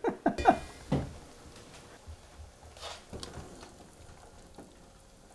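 A wooden spoon stirring vegetables in broth in a stainless steel pot, with a few soft, faint knocks against the pot. A short trace of a woman's voice in the first second.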